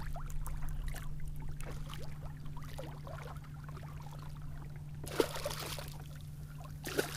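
Water trickling and lapping lightly against a kayak, over a steady low hum, with two brief louder splashes about five and seven seconds in.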